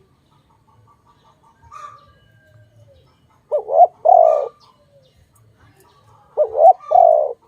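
Spotted dove cooing loudly twice, about three seconds apart. Each phrase is a quick wavering double note followed by a longer coo. Fainter chirps from other birds come before the first phrase.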